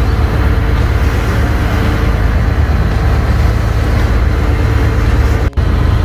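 Small passenger boat's engine running steadily under way, a loud low rumble with water rushing past the hull. The sound breaks off for an instant near the end.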